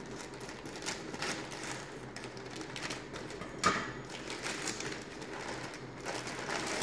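Plastic courier mailer crinkling and crackling as it is cut with scissors and pulled open by hand, in irregular bursts, the loudest and sharpest about three and a half seconds in.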